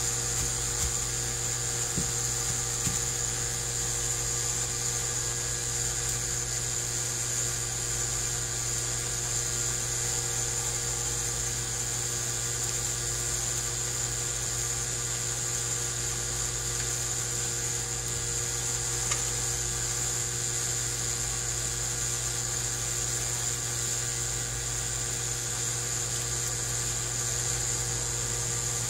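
A steady motorised hum with a high-pitched whine, unchanging in pitch and level, like a small electric motor running; a few faint taps about two and three seconds in.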